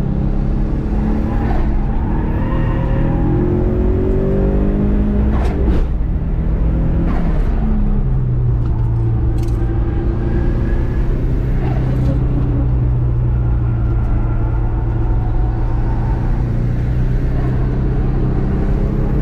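Subaru EJ207 turbocharged 2.0-litre flat-four engine driven hard on track. The revs climb for a few seconds, drop sharply about five and a half seconds in, then hold fairly steady for the rest.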